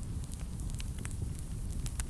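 Wood fire burning in a fireplace: a low steady rumble of the flames with scattered sharp crackles and pops.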